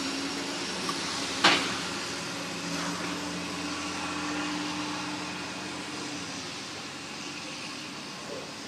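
Garbage truck engine and machinery running at a distance: a steady drone, with a low hum that holds for a few seconds and then fades. A single sharp knock about a second and a half in.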